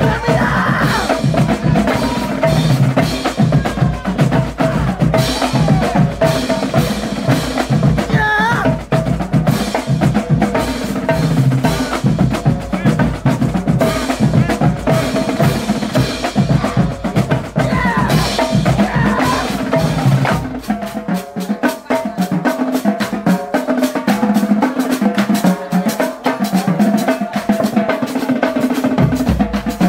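Marching band drumline playing a fast, loud cadence on snare drums, tenor drums and bass drums. About two-thirds of the way through the bass drums drop out, leaving the snares and tenors, and they come back in near the end.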